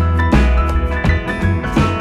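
Background music with guitar, a steady drum beat and a prominent bass line.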